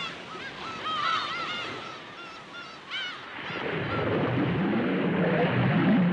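Birds calling in a flurry of short, honking cries that rise and fall. About three and a half seconds in they stop, giving way to a louder, steady low underwater rumble with wavering low tones.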